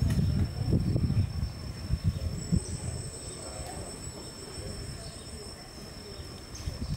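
Steady high-pitched drone of insects, with a second pulsing buzz from about two to four seconds in. Low rumbling noise in the first couple of seconds.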